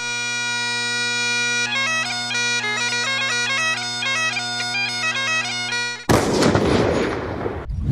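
Bagpipes playing a tune over their steady drones, the melody starting a couple of seconds in. About six seconds in, the pipes cut off suddenly and a loud blast of noise takes over and fades away.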